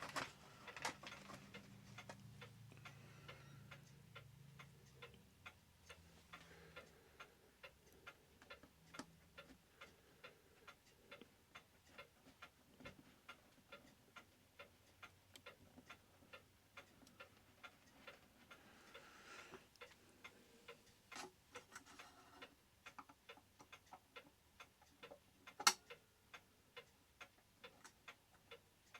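Mechanical clock ticking faintly and evenly, about two ticks a second. One louder sharp click about three-quarters of the way through.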